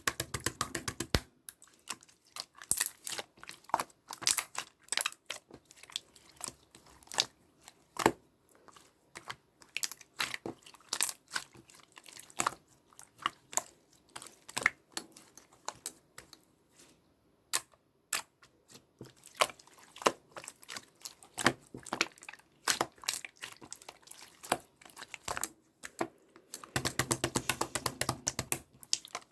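Irregular sharp clicks and crackles from something being handled by hand, in dense clusters at the start and again near the end, sparser in between.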